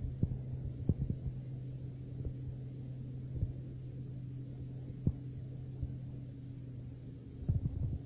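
Crane's engine running with a steady low hum, with a few short dull thumps.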